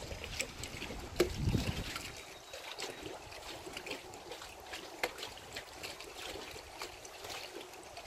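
Small waves on a lake lapping and splashing against the shore in quick irregular splashes. About a second in there is a sharper knock, and a low rumble, like wind on the microphone, that dies away.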